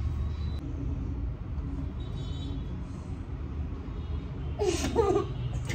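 A steady low background rumble, with a short, high-pitched laugh about five seconds in.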